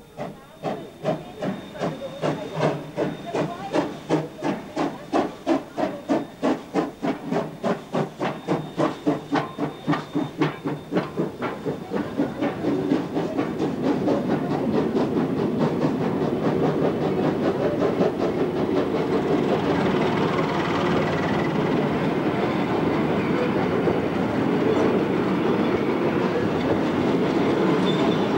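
Queensland Rail C17 class steam locomotive puffing away hard with a fast, even series of exhaust beats, which fade out about twelve seconds in. They give way to the steady running noise of its carriages' wheels rolling close by on the rails.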